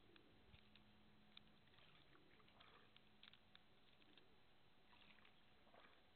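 Near silence: faint outdoor background with a few soft scattered ticks and a faint steady low hum that fades near the end.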